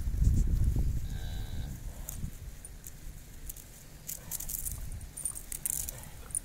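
Cattle mooing once, briefly, about a second and a half in, over low rumbling. Scattered light clicks and jingles follow a few seconds later as the newborn calf and the calving aid are handled.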